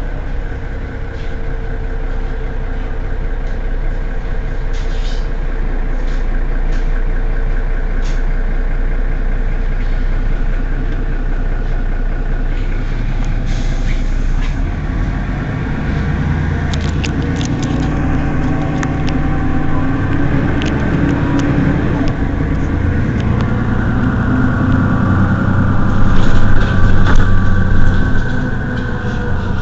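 Mercedes-Benz Citaro city bus engine running at a standstill: a steady idle for the first half, then from about halfway the engine note changes and grows louder, loudest near the end, with a few light clicks and knocks over it.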